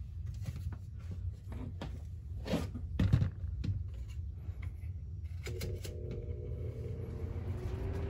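Lasko B20301 box fan: several clicks and knocks, then about five and a half seconds in a steady motor hum starts. Near the end the hum begins rising in pitch as the fan motor spins up.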